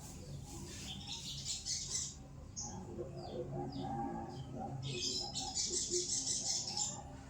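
A sogon songbird singing in rapid high chattering bursts. One burst comes about a second in, a few short scattered notes follow, then a longer dense burst of about two seconds comes in the second half.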